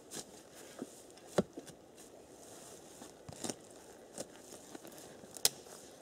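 Digging in forest ground to free a long buried piece of iron: rustling and tearing of soil and roots, with a few sharp knocks, two of them loud, about a second and a half in and near the end.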